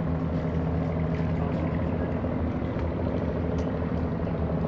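An engine running steadily at one even low pitch.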